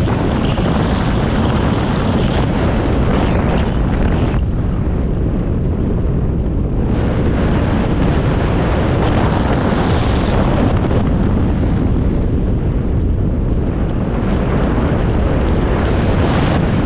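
Wind noise buffeting the microphone of a camera on a moving ride: a loud, steady rush, heaviest in the deep end. The hiss above it thins out for a couple of seconds about four seconds in, and again for a while past the middle.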